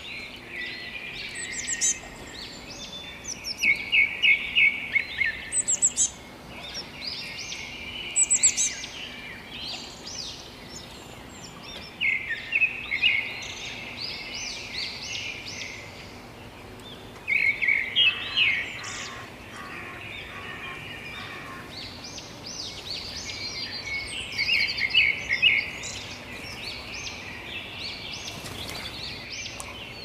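Songbirds chirping and singing in repeated bouts of quick, rapidly repeated notes, with brief pauses between bouts.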